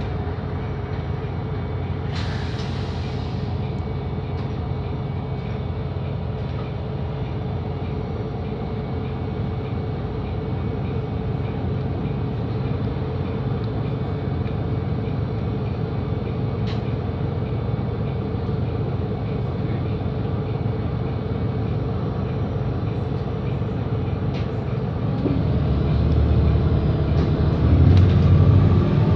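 Volvo B7RLE bus's rear-mounted six-cylinder diesel engine idling steadily, heard from inside the cabin, with a short hiss of air about two seconds in. Near the end the engine note deepens and grows louder as the engine revs up to pull away.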